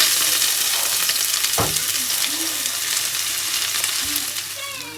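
Food sizzling loudly in hot oil in a pan, with one sharp knock of a utensil about a second and a half in; the sizzle eases slightly toward the end.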